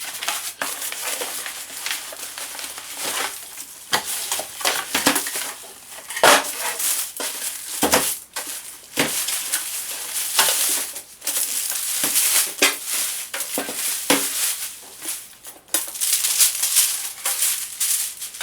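Unpacking a boxed microwave oven: cardboard and plastic packaging being handled, with irregular rustling, crinkling and crunching and scattered knocks.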